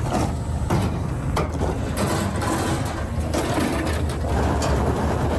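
A heavy engine running steadily, with a few sharp knocks in the first two seconds.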